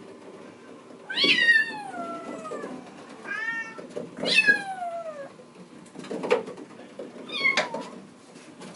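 Bengal kitten meowing loudly and repeatedly, four cries that each fall in pitch, calling to be let out. A short thud comes between the third and fourth cry.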